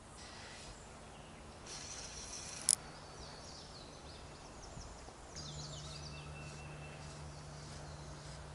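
Birds singing in a series of quick, high, falling notes, with one sharp click about two and a half seconds in and a faint low hum underneath.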